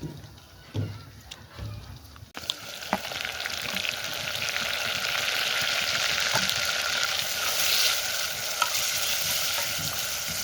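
Food sizzling in hot oil, a steady hiss that starts suddenly about two seconds in, after a few dull knocks. A few sharp clicks sound through it.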